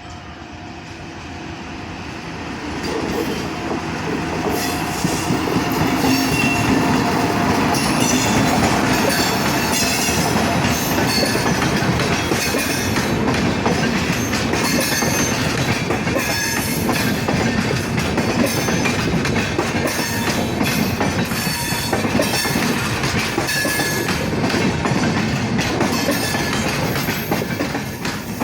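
Train of LHB passenger coaches running over the track, the wheels beating out a clickety-clack 'tadak tadak' over the rail joints, with brief wheel squeal. It grows louder over the first few seconds, then holds steady and loud.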